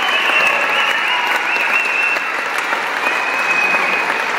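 Audience clapping, with long high-pitched cheers and shrieks held over the applause, twice.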